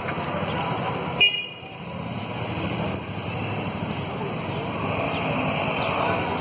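Street traffic noise with one short, high vehicle horn toot about a second in, the loudest sound.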